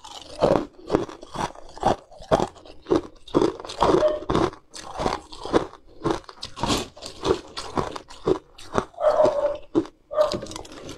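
Close-miked crunching and chewing of hard, coloured ice cubes, with sharp crunches coming two or three times a second, and a metal spoon scooping more cubes from the bowl.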